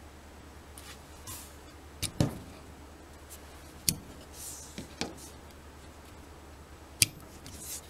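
Handling noise on the battery bench: about five sharp plastic clicks and knocks as hands grip the Bosch 12 V battery packs and pull the crimped wire terminals off their contacts, the loudest near the end, with a few short rustles of a jacket sleeve between them.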